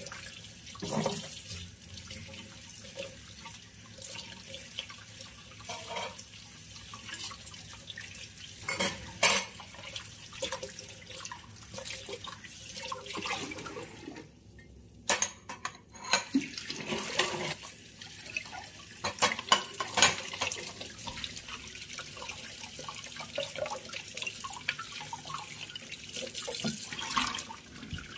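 Kitchen tap running into a stainless steel sink while dishes are washed by hand, with scattered clinks of glass and ceramic dishes being handled and set down. The water cuts out briefly about halfway through.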